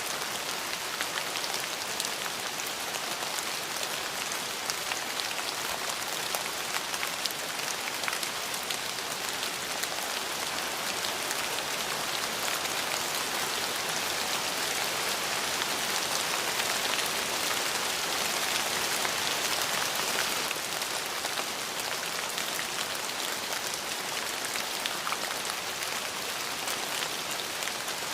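Steady rain falling on a surface, an even hiss with many small individual drop ticks, swelling a little about two-thirds of the way through.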